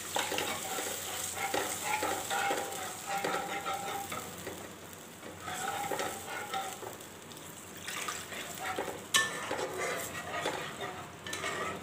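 Coconut milk being stirred into sizzling fried masala paste in a nonstick wok with a wooden spatula: repeated scraping strokes over a hiss of frying, with a few sharp knocks of the spatula against the pan in the second half.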